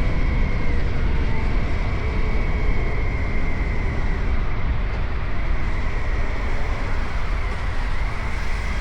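Suzuki GSX-8R parallel-twin engine running at a steady cruise under a heavy, even rush of wind and road noise.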